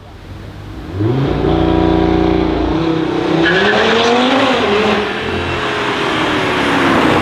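Audi RS3 8V's turbocharged five-cylinder engine, breathing through a Milltek downpipe with the secondary catalytic converter removed, accelerating hard and loud. The revs climb sharply about a second in, then rise and fall again around the middle.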